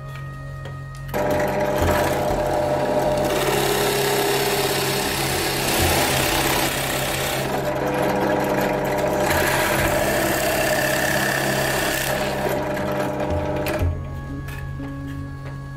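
Benchtop drill press boring a large hole through a pine board: the motor hums steadily throughout, and the loud cutting noise of the bit in the wood starts about a second in and stops about two seconds before the end.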